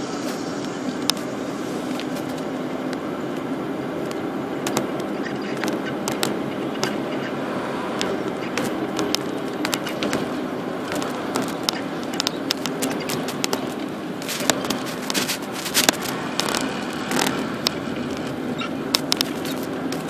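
Car running at low speed, heard from inside the cabin: a steady engine and road noise, with many small clicks and crackles that come thicker in the second half.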